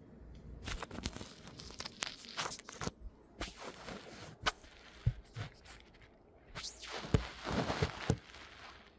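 Handling noise from a phone being gripped and set in place: irregular knocks, clicks and scraping rustles, with a longer rustling scrape near the end.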